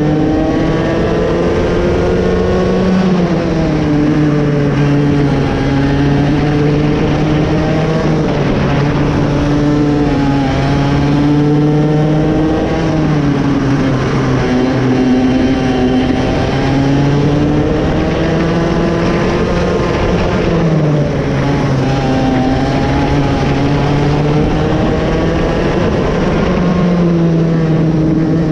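Raket 120 single-cylinder two-stroke kart engine running hard, its pitch climbing and then dropping every few seconds as the revs rise and fall.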